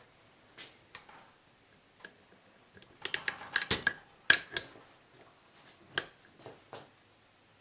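Torque wrench ratcheting and clicking as the carrier bearing cap bolts of a 1979 Triumph Spitfire differential are tightened to 38 ft-lb. Scattered single clicks, a quick run of clicks about three seconds in, then a sharp louder click just after.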